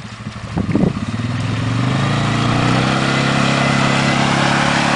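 Polaris ATV engine under throttle: it speeds up over the first two seconds, then runs steady and loud.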